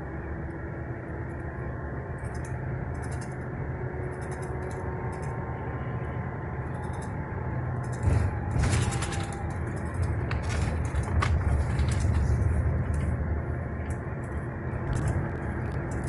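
Moving road vehicle heard from inside its cabin: a steady low rumble of engine and road noise, with brief louder swells of hiss now and then.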